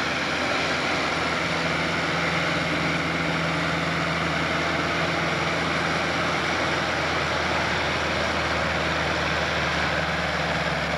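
Diesel engine of a Massey Ferguson farm tractor running steadily at low revs while hitched to a pulling sled, a constant drone whose pitch shifts slightly about six seconds in.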